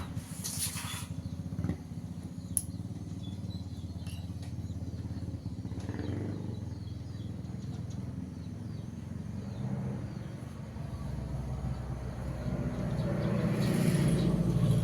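A small engine running steadily with a low hum, growing louder near the end, with a few faint knocks.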